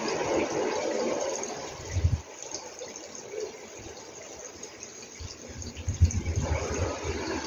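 Wind rushing over the microphone, with irregular low buffeting gusts about two seconds in and again from about five and a half seconds.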